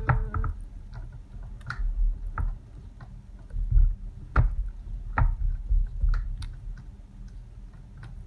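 Silicone spatula stirring thick hot-process soap paste in a pot: irregular clacks and scrapes as it knocks against the pot's sides, with wet squishing of the paste and a low rumble underneath. The soap is partway through its cook, starting to turn translucent.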